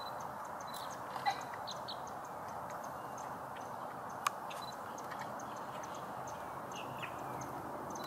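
Marsh ambience: a steady background rush with scattered faint, short bird chirps and ticks, and one sharp click about four seconds in.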